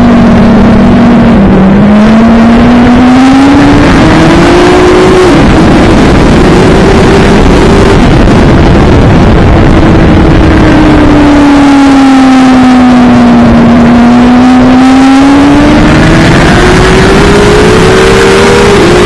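Racing motorcycle engine heard on board at speed, with heavy wind rush over it. The revs fall as it slows, climb with a gear change about five seconds in, sink slowly through a long bend, then rise again with another change near the end.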